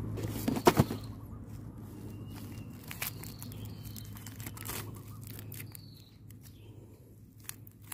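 Rustling and scattered sharp clicks of hands handling a freshly caught field rat as it is pushed into a container, loudest in the first second and quieter afterwards. A few faint, short, high chirps sound now and then.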